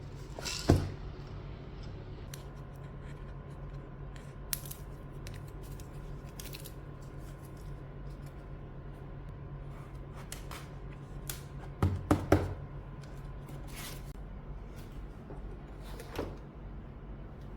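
A few sharp clicks and knocks, three in quick succession near the middle, over a steady low hum.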